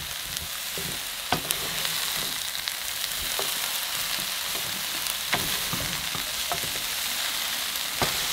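Stir-fry sizzling in a nonstick pan with a steady hiss, while two wooden utensils toss the chicken and vegetables, giving a few short knocks of wood against the pan.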